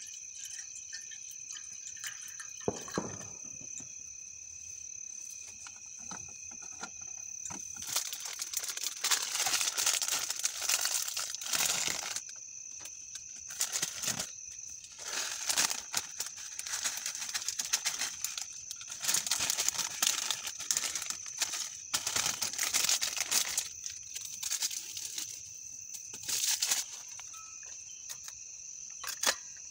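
Thin plastic packets of instant noodles and seasoning crinkling and tearing open in repeated bursts, starting several seconds in. Night insects, crickets, trill steadily in the background.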